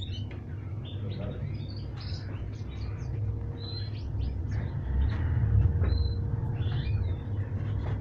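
Caged canaries chirping in short high notes with a few brief whistles, over a low background rumble that is loudest in the middle.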